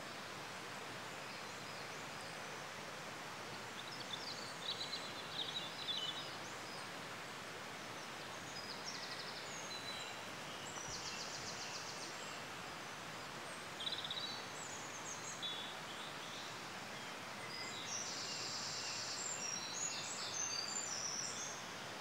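Small woodland birds singing and calling: short high trills and chirps come and go over a steady background hiss, busiest near the end.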